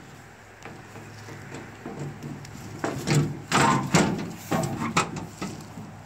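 Several loud metal knocks and rattles, bunched about three to five and a half seconds in, from handling the sheet-metal engine side panel of a Case 580D backhoe.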